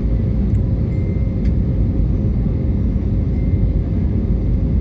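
Airliner cabin noise in flight: the steady, loud low rumble of the jet engines and rushing air, with a faint steady hum over it.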